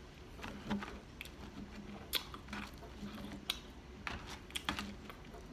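Close-miked chewing of crunchy fried chicken tenders: quiet, irregular crisp crunches and wet mouth clicks, several each second or two.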